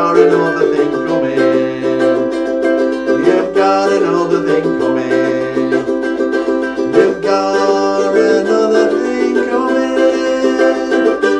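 Ukulele strummed in steady rhythmic chords, ringing off the walls of a small tiled bathroom.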